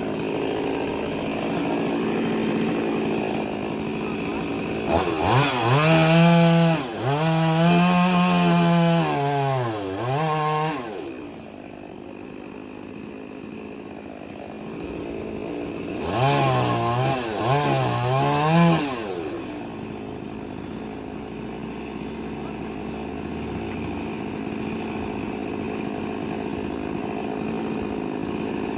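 Stihl MS 382 two-stroke chainsaw running at low throttle, then opened up to full throttle in two stretches, about five seconds in and again about sixteen seconds in. In each stretch the engine pitch repeatedly sags and climbs again before it drops back to a lower, steady running note.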